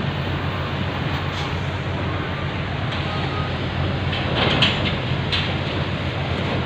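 Steady low hum of a ferry's engines under a continuous rush of wind and water, with a few short knocks or rattles about four to five seconds in.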